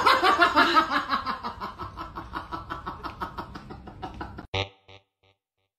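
A husky's laugh-like vocalization: a long run of rapid, even pulses, about eight or nine a second, loud at first and falling in pitch as it fades over about four seconds. A few short separate sounds follow, then quiet.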